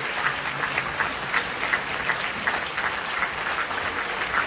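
Theatre audience applauding steadily, dense clapping from a large crowd at a curtain call.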